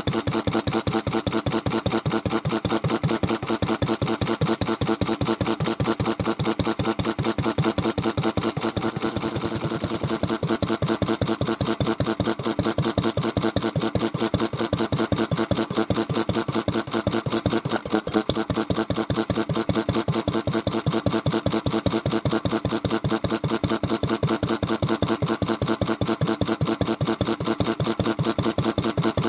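Kubota AN-type single-cylinder kerosene stationary engine running steadily, with a fast, even beat, its valve cover off and the valve gear exposed.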